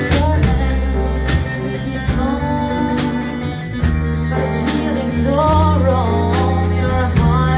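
A live band playing a song: held bass notes under a wavering lead melody, likely sung, with guitar and regular drum and cymbal hits.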